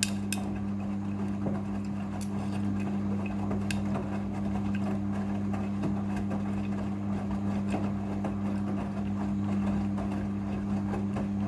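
Midea front-loading washing machine running in its rinse cycle: a steady motor hum with a noisy churn over it.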